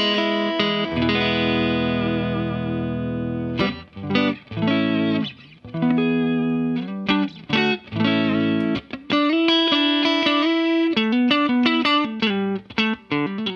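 Clean electric guitar, a Fender Stratocaster through a Vox AC30 amp with a compressor pedal on: a chord held for a couple of seconds, then picked single notes and short phrases.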